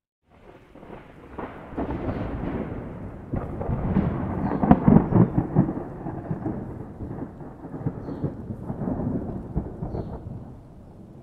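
A thunder roll that rises out of silence into a deep rumble with crackling peaks a few seconds in. It swells again more weakly, then dies away.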